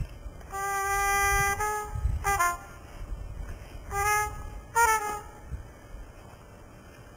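Trumpet playing short jazz phrases: a held note, then quick notes slurring downward, and two more brief phrases about four and five seconds in that end in falling slides, before a pause.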